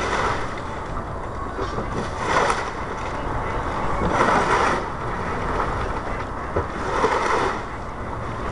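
Old roof shingles being pried up and torn off the roof deck: scraping, rustling bursts about every two to three seconds over a steady low rumble.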